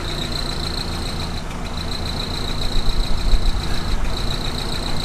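A 1961 Jeep CJ-5's engine idling steadily, heard close to the front wheel, with a thin, steady high-pitched whine over it that drops out briefly twice.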